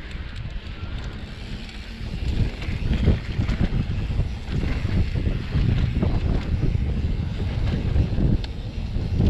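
Wind buffeting the microphone over the rattle and tyre crunch of an electric mountain bike riding a rough trail, with irregular knocks throughout; it gets louder about two seconds in.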